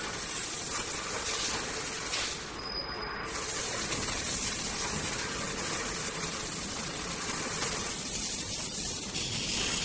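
Steady rushing, hissing noise of a plastic pipe extrusion line running in production, even throughout, with no distinct knocks or rhythm.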